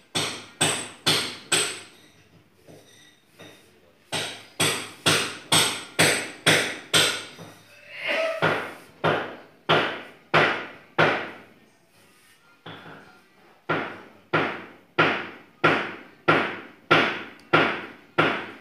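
Sharp knocks, about two a second, in runs of four to ten with short pauses between; each knock rings briefly.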